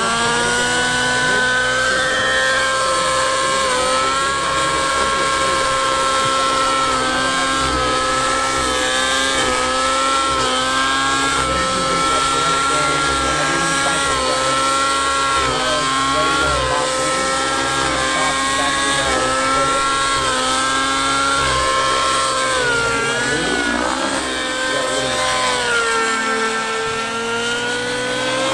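Nitro-engined RC helicopter in flight: the engine and rotors make a steady high whine whose pitch sways up and down as it is flown through fast passes and loops. About three-quarters through the pitch dips and climbs again, and it rises near the end.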